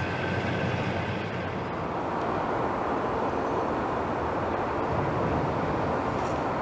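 Steady outdoor background noise: an even rumble and hiss with no distinct events.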